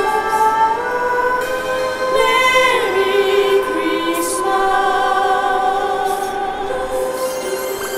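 Background music: a choir singing slow, long-held chords.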